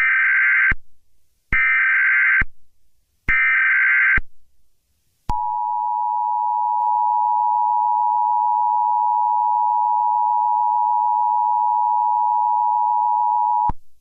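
Emergency Alert System tones: three roughly one-second bursts of SAME header data screech with short gaps between them, then the steady two-tone attention signal held for about eight seconds. Together they mark the start of an emergency alert broadcast.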